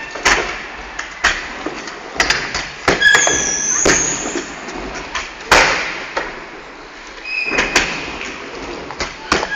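Scooter riding on concrete in a large indoor skatepark: irregular sharp clacks and thuds of landings and wheels hitting the ground. The loudest hit comes about five and a half seconds in, and the hits echo in the big hall.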